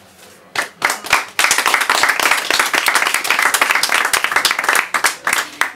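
Audience applauding: a few separate claps about half a second in, filling out into steady applause after about a second and a half, then thinning to scattered claps near the end.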